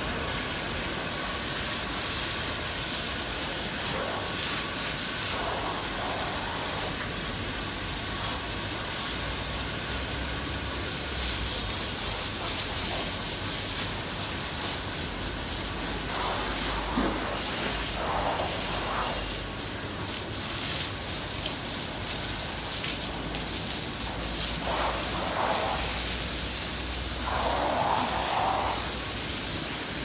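Steady hissing noise in a cattle shed, growing louder about a third of the way in, with a few short, faint mid-pitched sounds in the second half.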